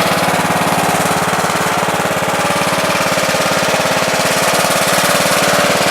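Small lawn-tractor engine running steadily at a constant speed, with an even, rapid pulsing beat.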